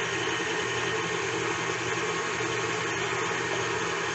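Electric mixer running steadily at an even speed, whipping shea butter lotion.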